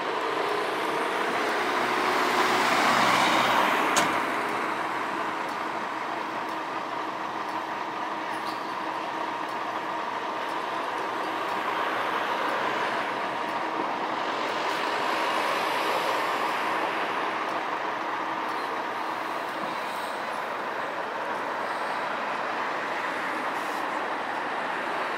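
Scania hybrid bus standing at a stop with its machinery running: a steady hum with a thin steady tone. Road traffic swells around it twice, about three and fifteen seconds in, with a sharp click about four seconds in.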